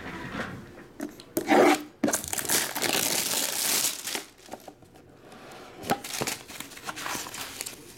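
Plastic shrink wrap being torn off a trading-card box and crumpled: a sharp tear about a second and a half in, then about two seconds of loud crinkling, followed by lighter rustling and a few clicks as the box is handled.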